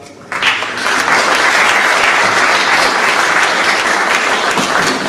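Theatre audience applauding, breaking out suddenly just after the start and holding steady and loud.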